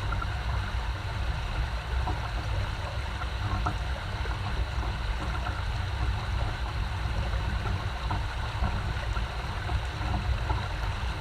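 Creek water flowing steadily, a continuous rush with a deep low rumble and small scattered splashes.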